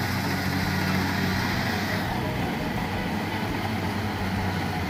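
Tracked rice combine harvester running steadily while cutting and threshing standing rice: a constant engine-and-machinery sound with a low hum.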